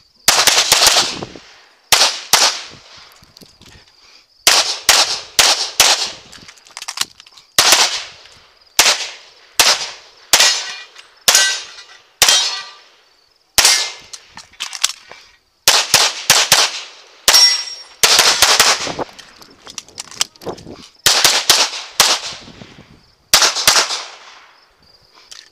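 Rapid pistol fire from a CZ Tactical Sport Orange: quick pairs and strings of shots with short pauses between strings, some hits ringing off steel targets.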